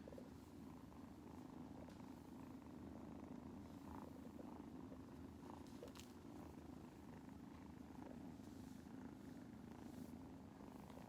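A cat purring steadily and softly, close to the microphone.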